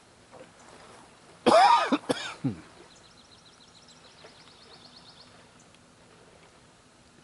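A man coughing: a loud, harsh cough about a second and a half in, followed at once by a shorter second cough.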